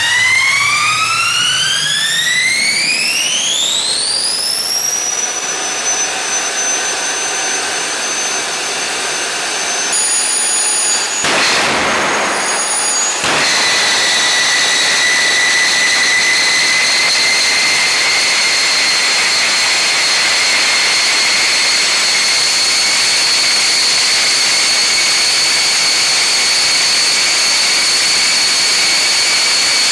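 Homemade turbojet engine spooling up, its whine rising steeply and levelling off about five seconds in. Around ten seconds in a rough rushing surge lasts a few seconds, then from about thirteen seconds the engine runs steady and louder with its afterburner lit, a high whine over a loud rush.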